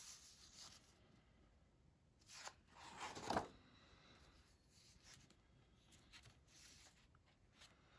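A paper page of a colouring book being turned: a short rustle, then a louder swish about three seconds in, and a few faint rustles of a hand on the paper afterwards. Otherwise near silence.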